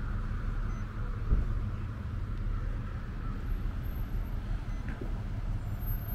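Steady outdoor traffic rumble with a single short thump about a second in.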